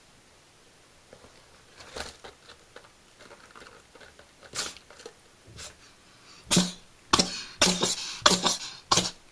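Cat sneezing over and over, set off by a feather stuck in its nose: a few softer sneezes spread out early on, then about six sharp sneezes in quick succession, roughly two a second, in the last three seconds.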